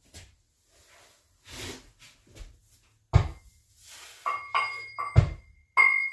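Metal gym weights being handled: two heavy thuds about three and five seconds in, and sharp metal-on-metal clinks that ring briefly, the loudest near the end.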